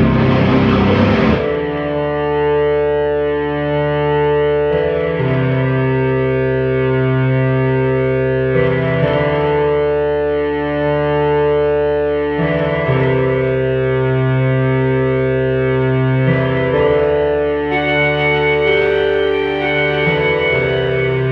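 Live drone music: a Casio keyboard holds sustained chords through effects, moving to a new chord about every four seconds. A dense, noisy wash of sound cuts off about a second and a half in.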